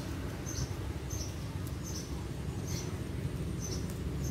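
Short high-pitched chirps repeating about once a second over a steady low background hiss.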